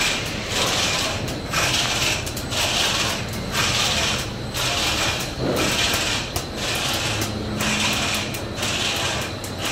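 Sandwich panel production line machinery running, with a steady mechanical clatter and an even, pulsing hiss that repeats a little more than once a second.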